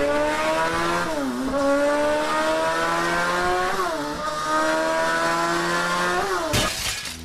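A vehicle engine accelerating hard through the gears: its pitch climbs steadily, drops sharply at each of three gear changes, then climbs again. Near the end the engine note falls away in a short burst of noise.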